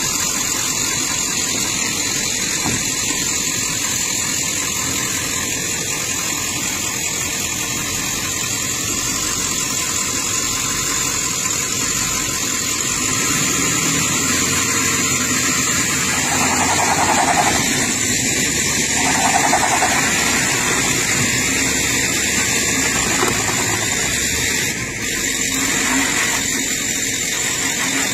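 Vehicle engines running steadily while a pickup truck pulls on a tow strap to drag a stuck SUV out, with two short louder surges a little past halfway.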